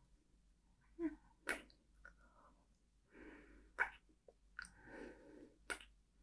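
Close-miked kisses: several sharp, wet lip smacks with soft breaths between them.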